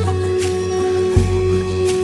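Background music: held notes over a low bass line, with the bass changing about a second in and two light ticks of percussion.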